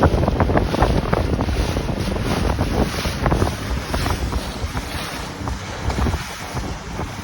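Wind buffeting the microphone, with many irregular knocks and rattles that thin out after the first few seconds.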